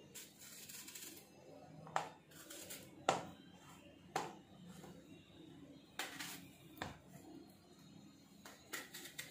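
Apple being cut with a kitchen knife: a series of irregular sharp knocks as the blade goes through.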